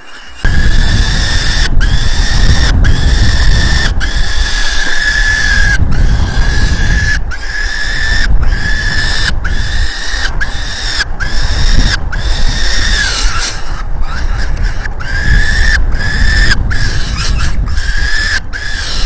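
Peregrine falcon chick giving shrill begging calls as it is fed, repeated one to two times a second, each call held on one steady pitch. Heavy wind rumble on the microphone runs under the calls.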